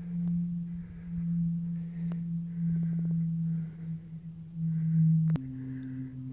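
A steady low humming tone that switches abruptly to a lower, two-note hum about five seconds in.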